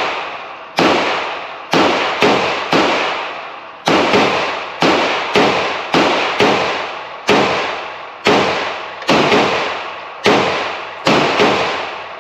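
Handgun shots at a shooting range: a string of about sixteen loud cracks at an uneven pace, each echoing for about a second.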